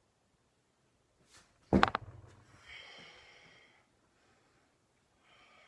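A single thud about two seconds in as a person jumps back out of crow pose and lands on the floor, followed by a long breath out for about a second and a softer breath near the end.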